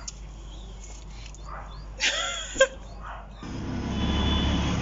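A dog whining with short high, bending yelps about two seconds in. About three and a half seconds in the sound cuts to a steady low rumble.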